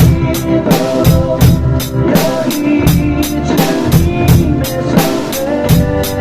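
Drum kit played along with a recorded worship song, a steady beat of bass drum and snare at about four strokes a second over the backing track, in a beginner's practice.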